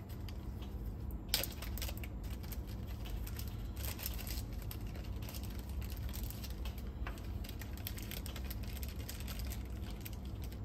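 Light clicking and rustling of hands rummaging among small parts while searching for replacement drive belts, with a sharper click about a second in, over a steady low hum.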